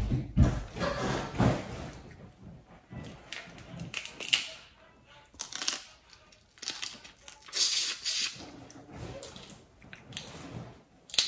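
Boiled crawfish shells being cracked and peeled by hand, with wet sucking and chewing at the mouth, in short irregular crackling bursts.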